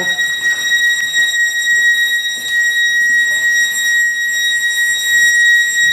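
A triggered building alarm sounder going off with one loud, unbroken, high-pitched tone.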